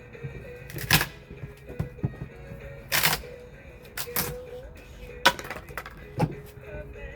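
Sharp knocks and cracks of wood being broken apart during demolition of a wooden door, about five blows roughly a second apart.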